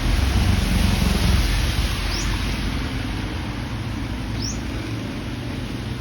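Steady hiss of rain, with a low rumble in the first second or so, and two short, high, rising bird chirps about two seconds apart.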